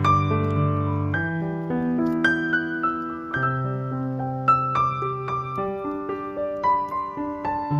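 Background music: a piano melody over held bass notes.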